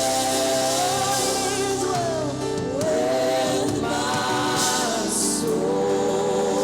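Voices singing a gospel song in harmony, holding long notes with a dip and rise in pitch partway through.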